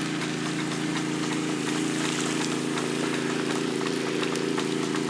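Small gasoline engine of a trash pump running steadily at a constant speed, with the hiss and patter of sprinkler spray from an irrigation boom.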